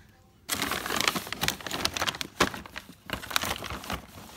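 Plastic dog-treat bags crinkling and rustling as they are handled, starting about half a second in and stopping just before the end.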